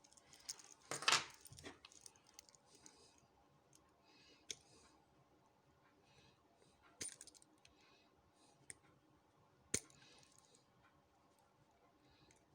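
Small metal lock parts from a Union 5-pin rim cylinder being handled and dropped onto a hard surface: a handful of separate sharp clicks and taps, the loudest about a second in and near ten seconds.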